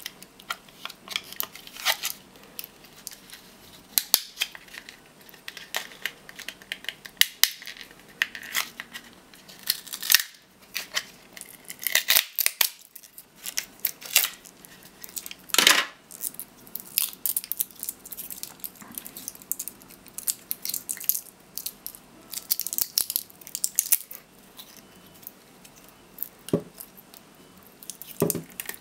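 A laptop battery pack taken apart by hand: its 18650 cells in their plastic holder and the black plastic case click, crack and rattle irregularly. The sharpest crack comes about halfway through.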